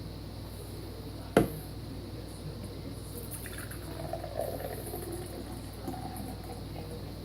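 Beer being poured into a glass, fizzing. There is one sharp knock about a second and a half in.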